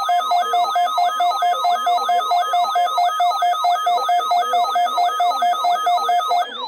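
Electronic alert tones from emergency alert equipment: a siren-like warble of quick falling sweeps, about four a second. A pulsing two-tone beep sounds over the warble and stops shortly before the end.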